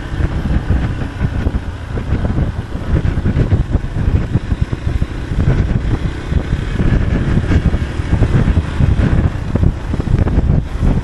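Motorcycle riding at low road speed, its engine running under heavy wind buffeting on the microphone.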